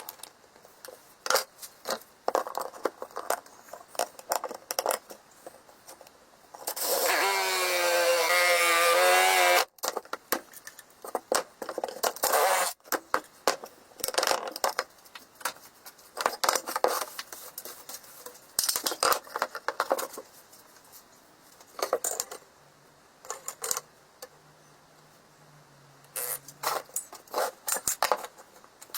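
Woodworking tool sounds: repeated short scrapes, taps and knocks on wood, interrupted about seven seconds in by a small power tool running for about three seconds with a wavering whine.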